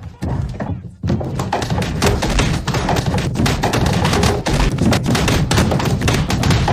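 Cartoon sound effect of a body tumbling down stairs: a dense, unbroken run of thuds and bumps mixed with music, starting after a brief lull about a second in.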